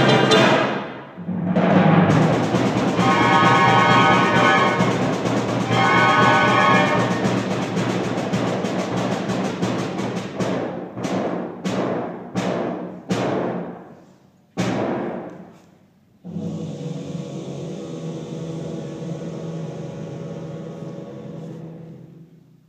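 High-school wind band playing the closing bars of a piece: loud full-band chords, then a run of about seven short, sharp accented hits that each die away, then a soft held chord that fades out near the end.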